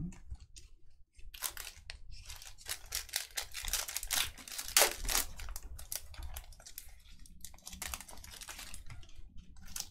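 Trading-card pack wrappers being torn open and crinkled by hand, with irregular crackles and rustles.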